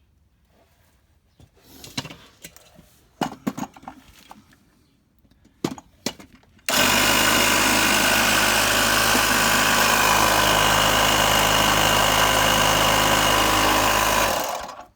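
A few handling knocks and clicks, then a salvaged electric pump motor switches on suddenly and runs loud and steady for about seven seconds before shutting off. The owner says it isn't holding pressure.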